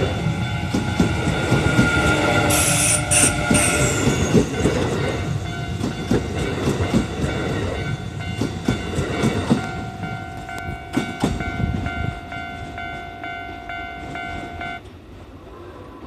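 Kintetsu 9820 series electric train passing close by, its wheels clacking rhythmically over the rail joints. Several steady tones of a level-crossing warning bell sound over it and cut off suddenly near the end, as the sound fades.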